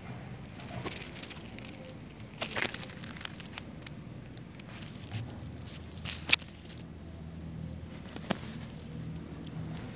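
Rustling and crackling of dry grass and leaves, with sharp crunches about two and a half seconds in, a louder pair just after six seconds, and one more near eight seconds.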